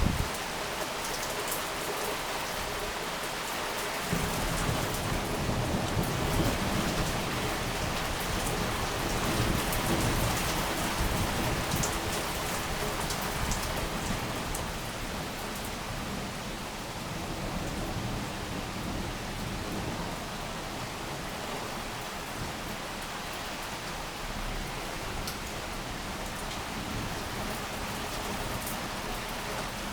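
Heavy rain pouring down steadily through a thunderstorm. About four seconds in, a long low rumble of thunder rolls in and fades away over the next ten seconds or so.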